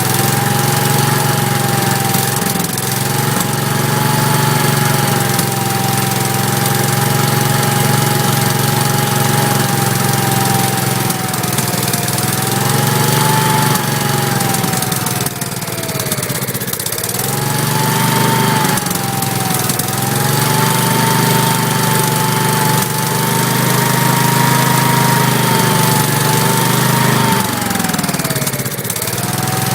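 Kohler K341 single-cylinder engine of a Gravely 5865 walk-behind tractor running, on its first run after repairs and with no throttle cable fitted. Its speed sags and picks back up twice.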